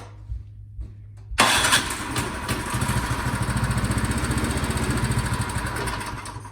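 Craftsman snowblower's overhead-valve four-stroke engine catching on the electric starter about a second and a half in and running for about five seconds on starting fluid sprayed into the cylinder, then dying out. It runs on the fluid: the fault lies in getting gas to the engine, at the carburetor.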